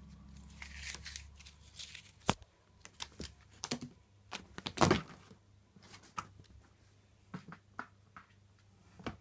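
A cat scrabbling among cardboard boxes and wrapping paper: irregular taps, scratches and rustles, with a sharp knock a little over two seconds in and the loudest scuffle about five seconds in.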